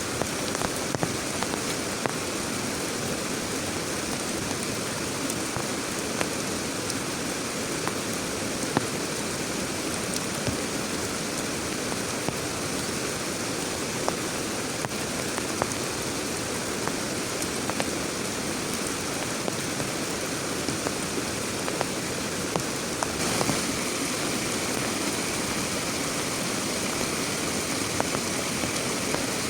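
Heavy rain falling steadily, with many scattered sharp drop hits standing out.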